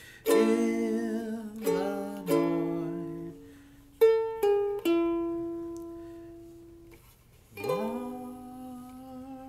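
Cigar box ukulele: three strummed chords, then a few single notes plucked about four seconds in and left to ring out. Near the end a voice holds a long note over the strings.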